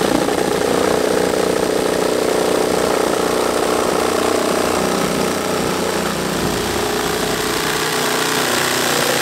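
Cordless oscillating multi-tool running steadily as it cuts an opening through an RV's side wall: one unbroken buzz that holds the same pitch throughout.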